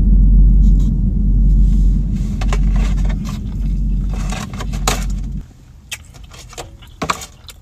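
A very loud deep rumble that cuts off suddenly about five seconds in, with light clicks and scrapes of food packaging being handled over it and after it.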